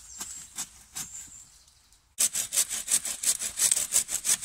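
Faint rustling of branches, then from about two seconds in a bow saw cutting through a live willow stem with quick, even back-and-forth strokes.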